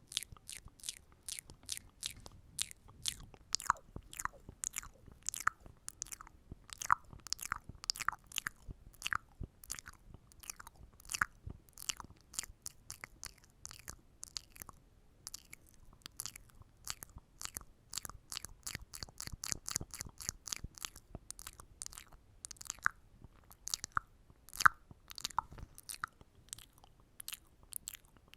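ASMR mouth sounds close to the microphone: a quick, uneven run of wet clicks and pops, several a second, with a short pause about halfway through.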